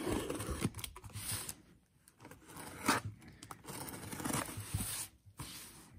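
Cardboard shipping box being torn open by hand: the slit seam and flaps ripping and scraping in several short bursts.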